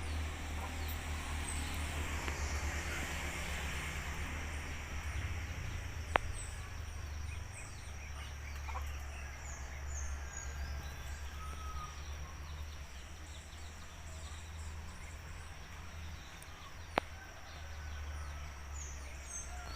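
Outdoor rural ambience: a steady high-pitched drone with scattered faint chirps over a low rumble, broken twice by a sharp click about eleven seconds apart.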